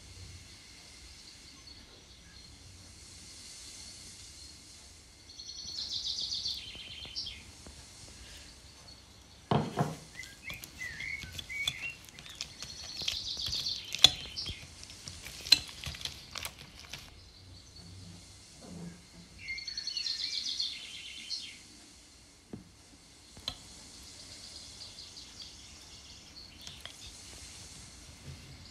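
Wire whisk beating cake batter in a glass bowl: a rapid rattle of ticks in three bursts of a couple of seconds each, with a few sharp knocks against the bowl in between.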